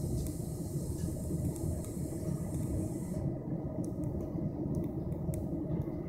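Steady low rumble of a passenger train running, heard from inside the coach, with a few faint clicks in the second half.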